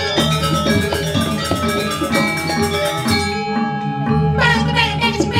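Balinese gamelan playing: tuned bronze metallophones struck in fast, dense patterns over drum and low gong tones. The high ringing thins out about three seconds in, then strong strikes come back near the end.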